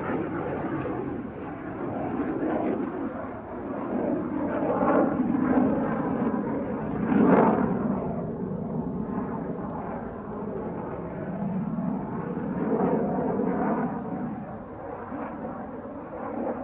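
A British Aerospace Hawk T1A jet trainer's single Rolls-Royce Turbomeca Adour turbofan, heard flying display aerobatics overhead. The jet noise swells and fades as it manoeuvres, loudest about seven seconds in.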